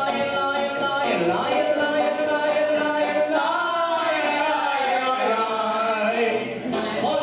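Live acoustic band: a man and a woman singing together over banjo and upright bass, the voices holding long, sliding notes.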